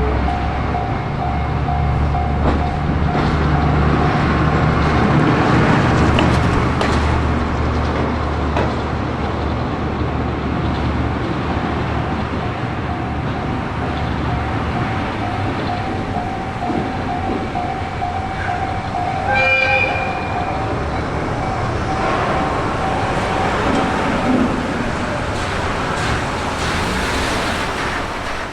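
Japanese level crossing warning bell ringing steadily while a diesel freight locomotive passes over the crossing, its engine running low and its wheels rumbling. About twenty seconds in the locomotive gives one short horn toot, and the bell stops a few seconds later.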